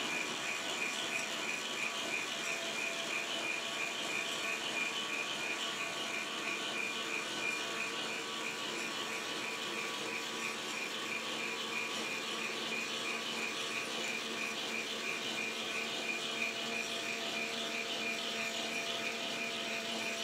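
K'NEX motor driving an inverted helix ball lift, a steady buzz with a fast, even pulsing from the running mechanism.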